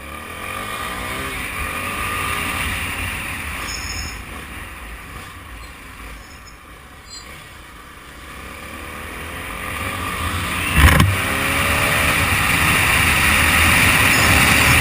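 Small motorcycle's engine running under way, its pitch rising as it accelerates, easing off, then climbing again through the gears. A single sharp thump about two-thirds of the way through.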